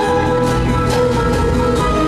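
Orchestral show music with sustained notes and a light, regular beat.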